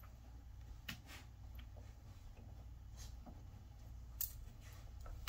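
Faint, sharp clicks and light rustling over a low steady hum, a handful of them, from a dog moving on its leash as it comes up to a pile of bedding.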